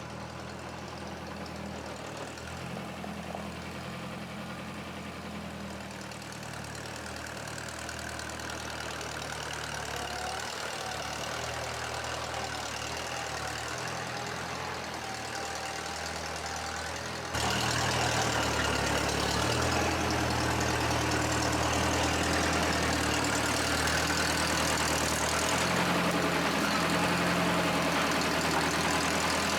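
Forklift engine running at a steady idle, a low drone; about two-thirds of the way through it turns abruptly louder.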